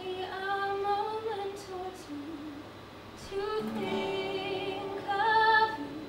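Female voices singing a slow musical-theatre song, with acoustic guitar accompaniment. Two sung phrases, with a brief lull about halfway, and the loudest held note near the end.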